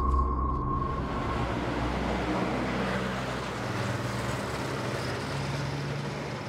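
Street traffic noise with a motor scooter's engine running past, a steady hiss over a low engine hum. A steady high tone ends about a second in.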